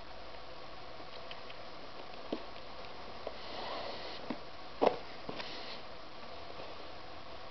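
Flat shoelace being threaded through a sneaker's eyelets and pulled: short rustles of the lace sliding and a few light taps, the sharpest a double tap about five seconds in, over a steady hiss.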